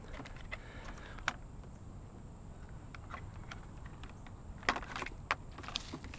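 Scattered sharp clicks and light rattles as hand clippers are worked on a piece of scrap, with the loudest clicks near the end.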